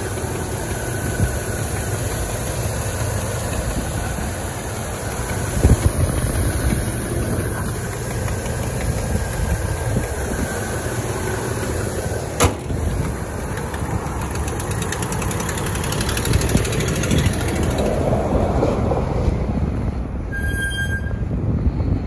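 2009 Dodge Dakota pickup's engine running steadily at idle under the open hood, with a single sharp click about halfway through.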